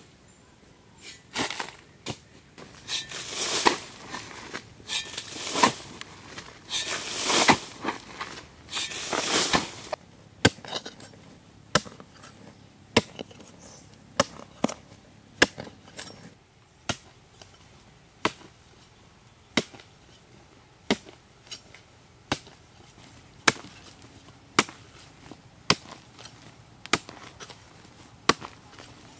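A hoe striking hard, dry earth over and over as a trench is dug out. For the first ten seconds or so the strokes are longer, scraping ones; after that they are sharp, evenly spaced chops about once a second.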